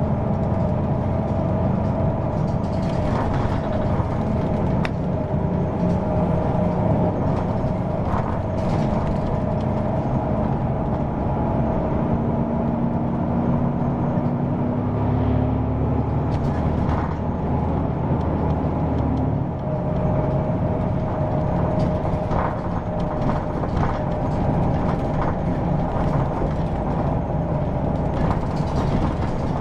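Hino PDG-KV234N2 city bus running, heard from on board: the diesel engine and drivetrain run steadily under constant cabin rattles and clicks. A whine climbs in pitch as the bus pulls from about 13 seconds in, then drops away at about 19 seconds.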